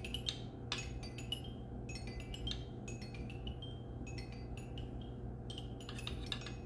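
Toy xylophone tapped lightly with a ball-headed mallet: a string of soft, quick ringing notes in small runs of two or three, with short pauses between them.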